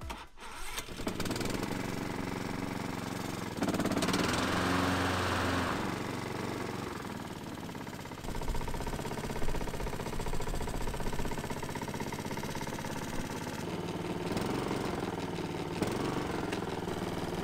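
Honda HRX 537 walk-behind mower engine running steadily after its clutch bearing was replaced, with no bearing noise: the repair has cured it. A few seconds in, it runs louder for about two seconds, then settles back.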